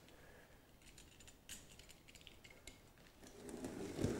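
Faint, sparse small clicks, then a rustling scrape that grows near the end as a hand presses and slides on a cardboard box.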